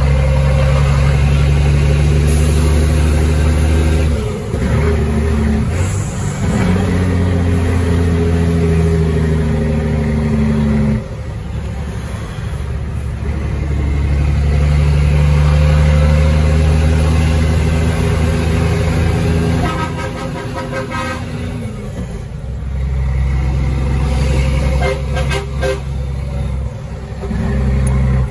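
Caterpillar 3306 inline-six diesel in a 1999 Ford Sterling truck running under load at steady revs. It holds a deep, even drone for several seconds at a stretch, dipping briefly three times in between.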